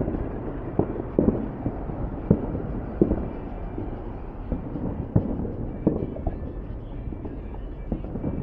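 Fireworks display: a string of booms and pops at uneven intervals, roughly one a second, over a continuous low rumble.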